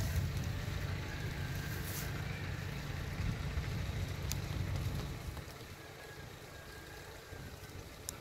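Low, steady engine drone from a tracked rice carrier running at low revs, weakening about five seconds in. Two brief sharp clicks, one near the middle and one near the end.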